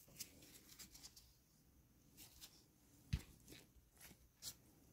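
Near silence, with faint scattered clicks and taps of costume jewelry being handled, and one soft low thump about three seconds in.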